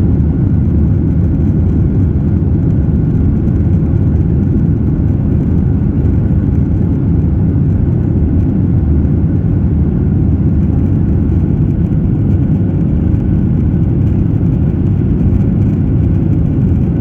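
Steady, loud jet engine and airflow rumble inside the cabin of a Boeing 737-800, with faint steady tones over the low roar and no change in pitch.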